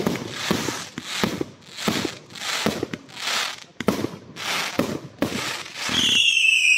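A 30 mm fan-shaped firework cake firing shot after shot, about one every 0.7 seconds. Each shot is a sharp launch crack followed by a half-second rush of noise as the shell breaks. About six seconds in, a loud whistle starts and slides slightly down in pitch as whistling tails leave the cake.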